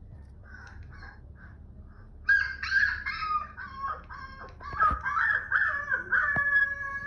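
Husky puppies howling and yipping, several high wavering voices overlapping. Faint short yips at first, then much louder howls from about two seconds in.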